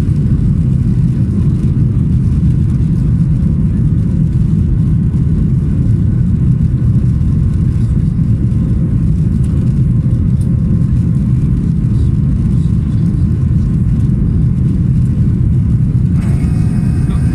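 Cabin noise inside a Boeing 737-800 climbing after takeoff: a steady, loud low rumble of its CFM56 jet engines at climb power and the rush of air past the fuselage. Near the end, a few faint higher tones come in over it.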